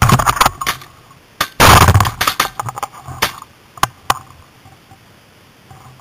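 A 12-gauge Beretta Xtrema semi-automatic shotgun firing once at flying geese, a very loud blast about a second and a half in, close enough to overload the recording. Sharp clicks and knocks come before it and scattered single knocks follow.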